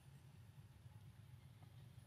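Near silence, with only a faint steady low hum in the background.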